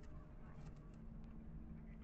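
Faint, light clicks of PVC cage pieces being moved and set on a tile floor, over a low steady background hum.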